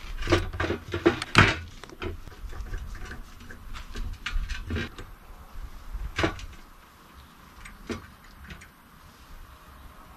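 Small metal clicks and knocks from a screwdriver working in a motorcycle carburettor body and from small brass parts being handled, thickest in the first second and a half, with one more sharp knock about six seconds in.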